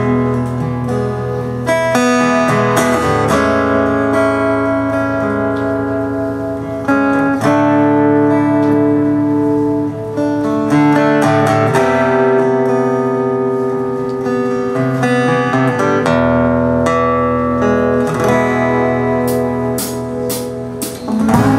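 Instrumental music led by guitar, held chords changing every few seconds.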